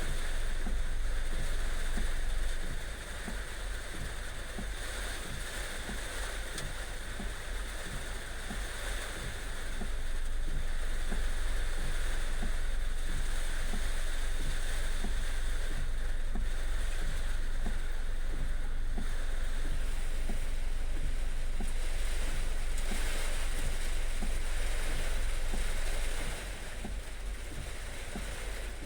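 Heavy rain pouring down: a steady hiss with a deep rumble underneath and many small drop impacts. It gets quieter about three seconds in, louder again around ten seconds, and quieter once more near the end.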